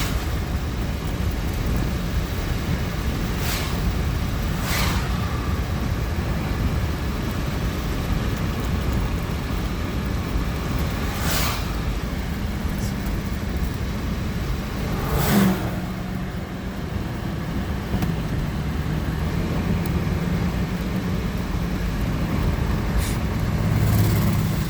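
Steady low rumble like a car running, with a few brief swishes and, from about halfway, a steady low hum.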